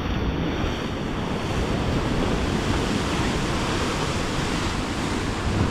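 Sea surf surging and churning into a narrow rocky cove, a steady rushing of breaking water, with wind rumbling on the microphone.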